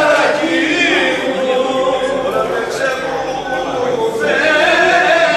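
Unaccompanied men's voices singing a Greek folk song (dimotiko), with long held notes whose pitch wavers and slides in ornaments.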